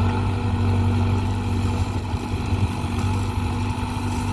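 Tractor engine running steadily at a constant speed with a low, even hum.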